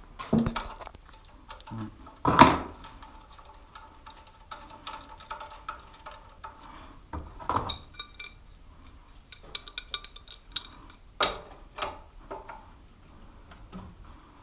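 Metal hand tools clinking and clattering: a string of irregular knocks and clanks, some ringing briefly, the loudest about two seconds in.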